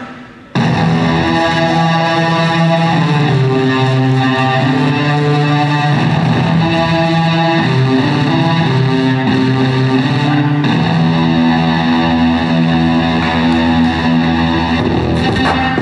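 Music with a distorted electric guitar line over a steady bass, cutting in about half a second in after a brief drop in the sound.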